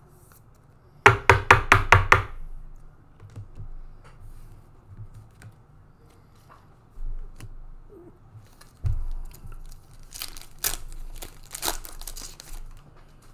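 A quick run of about six sharp knocks about a second in. Near the end comes the crinkle and tear of a foil Panini Mosaic trading-card pack being ripped open.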